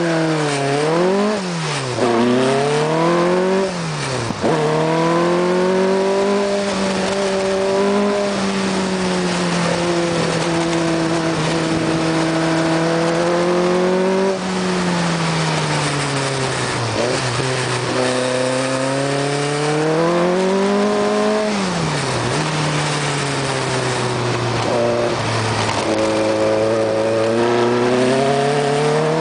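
Lotus 61 single-seater racing car's engine heard onboard at speed, with wind noise. It climbs through the gears in quick steps at first, holds steady high revs for long stretches, and drops off and picks up again several times for the corners.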